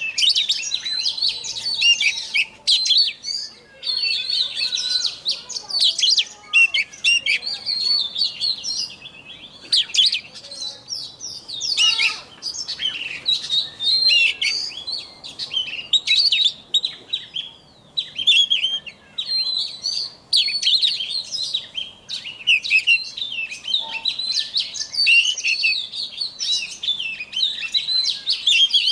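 A caged male white-rumped shama singing: a long run of fast, varied whistled phrases with short pauses between them.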